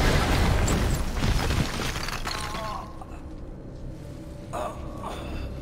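Film sound effects of a body crashing through a wall: a loud smash of breaking masonry and falling debris that dies down after two or three seconds to quieter scattered rubble.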